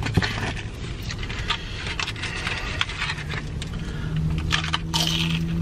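Eating in a parked car: chewing and irregular small clicks and scrapes of food packaging and utensils being handled, over a low steady rumble. A low steady hum joins about four seconds in.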